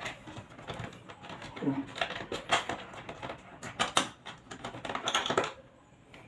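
Irregular clicks, taps and light knocks of hands working a plastic power outlet and its wires, tucking the wiring into the box.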